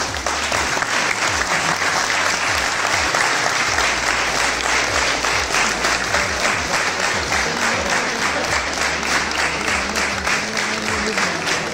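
A roomful of people applauding, a dense, steady clapping.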